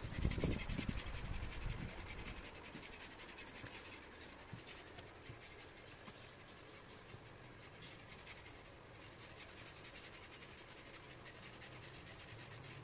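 Faint, rapid scratching and rubbing of a currycomb being worked over a mare's coat, with low knocks and rumbling in the first couple of seconds.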